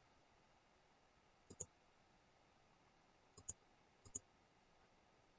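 Near silence broken by three faint computer mouse clicks, about one and a half, three and a half, and four seconds in.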